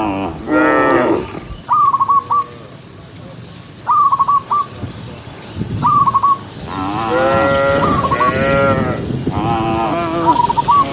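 Cows mooing several times: one call shortly after the start, then longer, overlapping moos in the second half. Between the moos a bird repeats a short call of about three quick falling notes.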